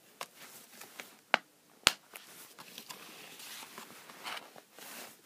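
A plastic DVD case being handled: two sharp clicks about half a second apart, then soft rustling and shuffling as the contents are put back.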